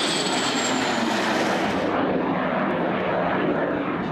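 Cessna A-37 Dragonfly's twin General Electric J85 turbojets in a fly-past: loud, steady jet noise with a shrill whine that slides slightly down in pitch. The high whine cuts off suddenly about two seconds in, leaving the broad jet noise.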